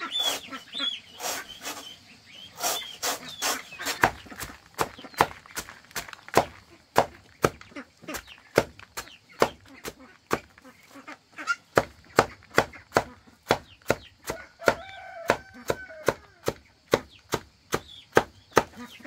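Chickens clucking and calling over a long run of sharp, evenly spaced knocks, about two a second.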